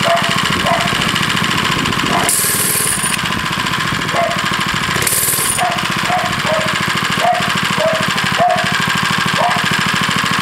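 Small four-stroke engine on a motorized bicycle running steadily through a Hilliard centrifugal clutch, the clutch running quietly. Two short hissing bursts come about two and five seconds in.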